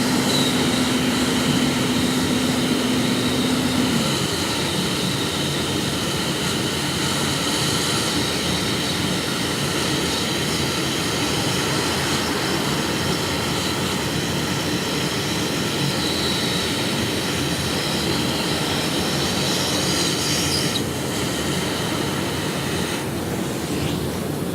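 Nitrogen plastic welder running, its hot gas jet hissing steadily with a high whine. A low hum underneath cuts off about four seconds in.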